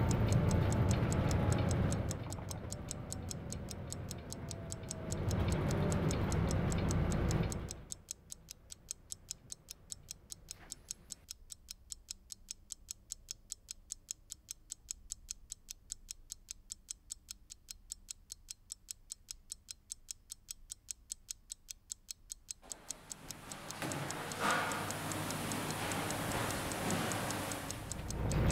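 A clock ticking steadily and fast, about three ticks a second, throughout. For the first eight seconds and again near the end it sits over the running noise of a city bus; in between the ticking is nearly alone.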